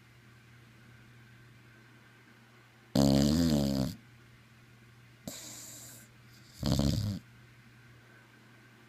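Snoring: two loud, rasping pitched snores about three and a half seconds apart, the first about a second long, with a fainter hissing breath between them. A low steady hum runs underneath.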